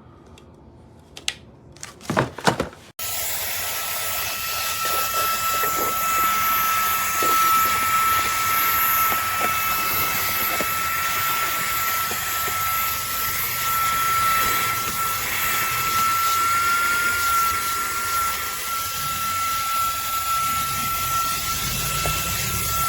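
A few sharp clicks and knocks, then about three seconds in the Fanttik V8 Apex handheld cordless vacuum's motor switches on abruptly and runs steadily with a high whine over a loud airflow rush.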